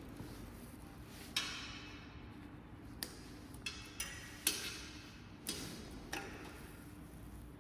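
Zip ties being snipped off a wire harness with cutters: a series of about seven sharp snaps and clicks, irregularly spaced, over a faint steady hum.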